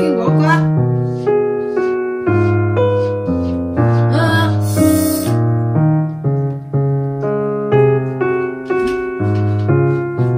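Background piano music, a gentle melody of single notes each struck and left to fade, with a brief hiss about four seconds in.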